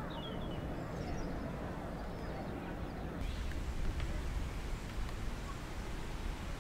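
Outdoor ambience with small birds chirping in the first half. After a cut about three seconds in, a low wind rumble on the microphone.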